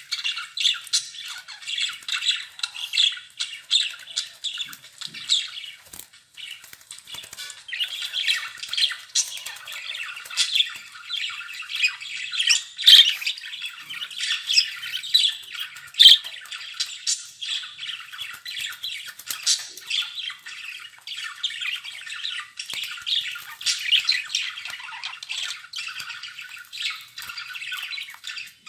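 Budgerigars chattering without a break: a dense stream of short, high calls and chirps, with a few louder, sharper calls about halfway through.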